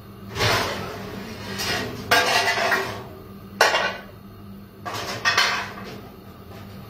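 Pots and metal baking trays clattering as they are shifted about in a low kitchen cupboard, in about four separate bursts.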